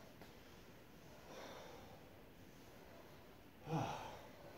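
A man breathing hard, winded from a set of jumps: a long exhale about a second and a half in, then a louder, gruff exhale near the end.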